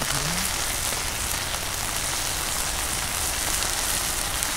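Small freshwater shrimp and little fish cooking in spiced liquid in a wok over a wood fire: a steady bubbling, sizzling hiss.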